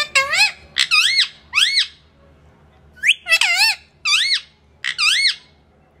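Male Indian ringneck parakeet calling: about half a dozen loud, shrill calls that waver up and down in pitch, in two runs with a short pause between about two and three seconds in.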